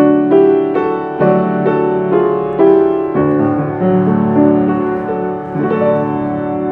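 Solo piano playing a slow, gentle worship-song accompaniment, with chords and melody notes struck about twice a second. It settles onto a held chord near the end.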